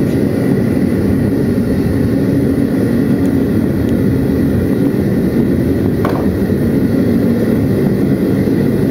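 Handmade venturi propane burner firing a forge at about 30 psi: a loud, steady roar of the flame.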